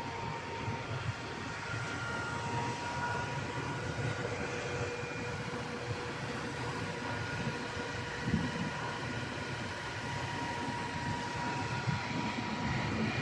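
River boat under way: steady engine drone with a few faint, steady whining tones over the rush of its wake, with gusty wind buffeting.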